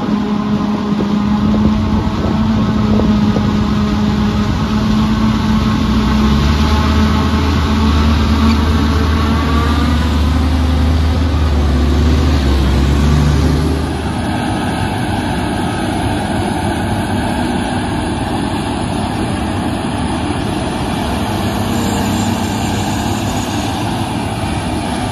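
Forage harvester and tractor engines running steadily while maize is chopped and blown into the trailer. The tractor's engine comes in loud as a low hum when it passes close by. About halfway through the level drops, and the machinery goes on more evenly and farther off.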